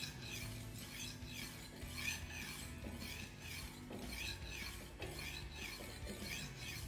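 Knife blade being stroked back and forth against a sharpening surface, a steady rasping scrape repeating at about two strokes a second.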